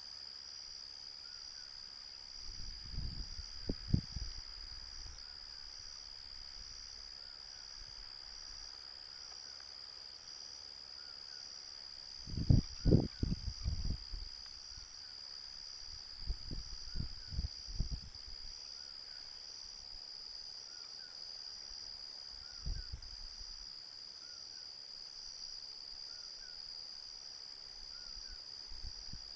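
Night insects trilling in a steady high chorus, with faint chirps repeating over it. A few low rumbling thumps break in, near 4 seconds, around 13 and 17 seconds, and once more near 23 seconds; the loudest comes about 13 seconds in.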